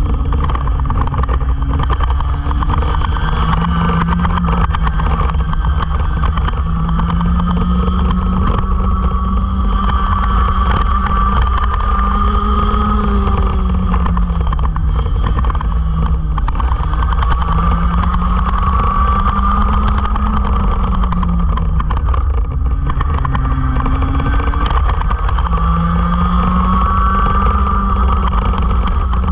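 Racing kart engines at full race pace, the pitch climbing along the straights and dropping back into the corners several times, over a heavy low rumble of wind and vibration on the onboard microphone.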